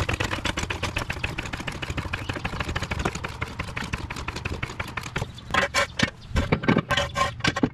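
3-ton low-profile steel floor jack being pumped to lift the car, a steady run of rapid mechanical clicks over a low hum. From about five seconds in come several louder metal clanks and knocks as a steel jack stand is set under the car.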